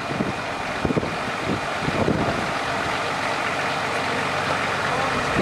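Modified off-road competition truck's engine running as it crawls slowly over a dirt mound, with wind on the microphone.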